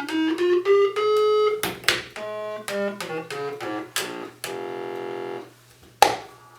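Stylophone 350s synthesizer played with its stylus: short buzzy notes stepping upward, then quick scattered notes with sharp clicks and a held buzzy tone near the middle.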